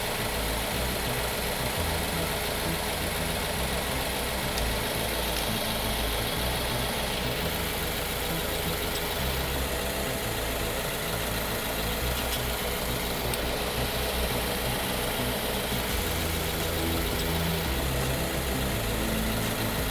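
A BMW car engine idling steadily, a low even rumble with a steady hiss over it. It idles so the ZF6HP19 automatic gearbox can be topped up with oil until it overflows.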